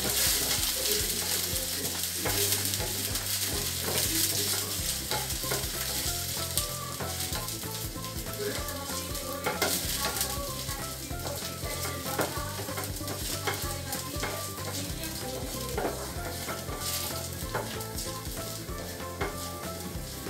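Chopped garlic sizzling in hot oil in a small frying pan while being stirred, with occasional sharp taps of the stirring utensil against the pan. The garlic is frying toward golden brown for a tadka.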